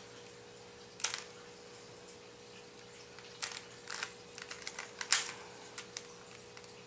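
Plastic Rubik's Cube being turned by hand: a scattering of sharp clicks and clacks as its layers are twisted, one about a second in, then a quicker run of turns in the second half. A faint steady hum sits underneath.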